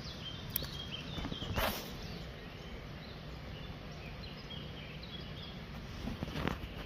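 Outdoor ambience: scattered faint bird chirps over a low steady rumble, with two brief rustling noises, one about a second and a half in and one near the end.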